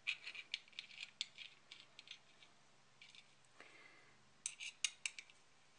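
Allen wrench turning and rattling in the threaded holes of a metal chainsaw conversion bracket while the threads are checked for burrs. It makes a run of small quick metallic clicks, a brief scrape, then a few sharper clicks near the end.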